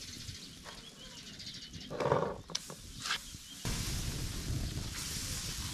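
A farm animal bleats once, briefly, about two seconds in. A little past halfway a steady hiss sets in from the wood fire under the round griddle.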